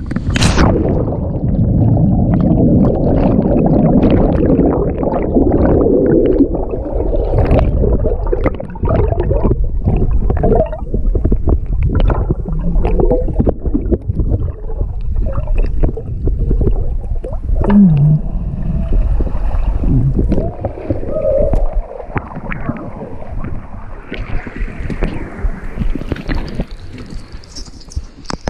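A person jumps from about 25 feet into a cenote with a GoPro. There is a sharp splash at the water entry. Then comes a heavy, muffled underwater rumble with bubbling and gurgling, heard through the submerged camera for about twenty seconds, until the sound opens out into airy outdoor hiss near the end as it surfaces.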